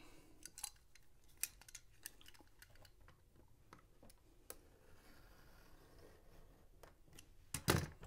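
Utility knife cut along a steel ruler through a thin rubber sheet on a cutting mat: scattered small clicks and taps of blade and ruler, a faint scraping stretch about five seconds in, and a sharper knock near the end.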